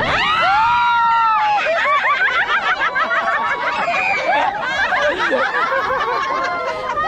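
A group of people shrieking and laughing together, many high voices overlapping without clear words.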